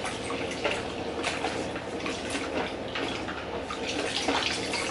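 Kitchen tap running as a plastic sippy cup is rinsed under it: a steady splash of water with a few light knocks.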